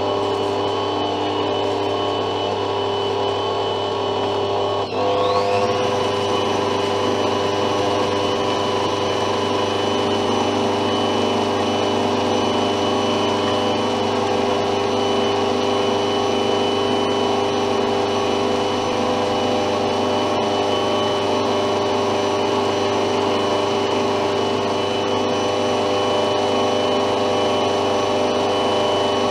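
Bosch stand mixer's electric motor running steadily with a whine, its beater working the creamed butter, sugar and egg mixture in a stainless steel bowl. About five seconds in the whine dips briefly, then glides up to a higher pitch and holds there.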